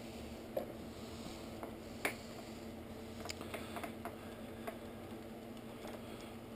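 Scattered small clicks and taps as hands handle parts and wiring behind a motorcycle's front fairing, with a sharper knock about two seconds in. A steady low hum runs underneath.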